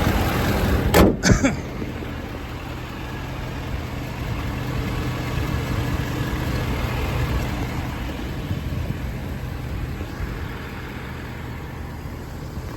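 Ford F550's 6.7 Power Stroke V8 turbo-diesel idling steadily, with two loud sharp knocks about a second in.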